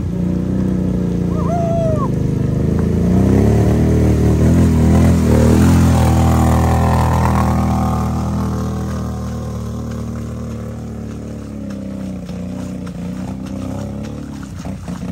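ATV engine running under way, growing louder to about halfway and then fading off.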